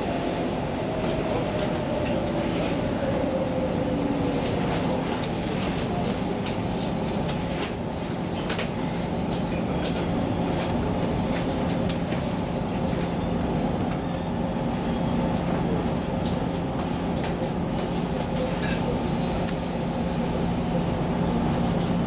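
Steady running noise of an X10 electric commuter train heard inside the carriage: a low rumble with a constant hum. A whine falls in pitch over the first few seconds, and sharp clicks come now and then.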